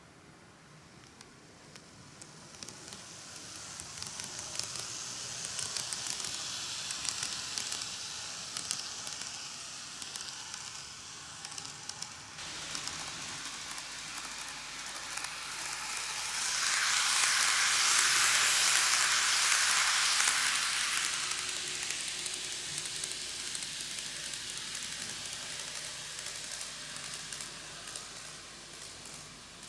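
N-gauge model train (Greenmax Keio 1000 series, five cars) running on its track: a hissing rolling noise from the wheels and motor with fine clicking, growing louder, loudest about two-thirds of the way through as it passes closest, then fading.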